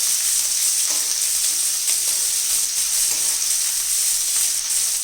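Boiled cluster bean pieces sizzling in hot oil with a fried tempering, a steady high hiss, with a spatula now and then scraping as they are stirred.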